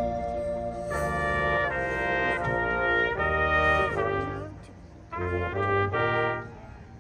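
Marching band brass section playing loud sustained chords, led by trumpets with trombones below. The chords change pitch every half second or so, stop briefly near the middle, then come back as another held chord.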